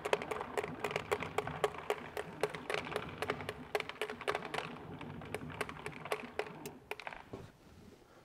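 Brush Bullet pellet applicator on a helicopter clicking rapidly as it dispenses herbicide pellets in a test run, several clicks a second. The clicking fades and stops about seven seconds in.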